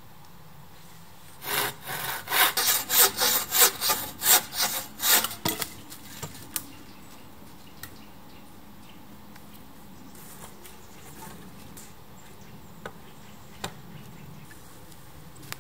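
Rhythmic scraping on wood, about a dozen quick strokes over some four seconds, then a few scattered light clicks and knocks.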